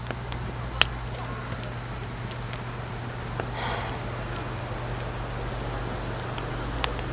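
Quiet campsite background: a steady low hum under a continuous high insect chirring, broken by two sharp pops, one about a second in and one near the end.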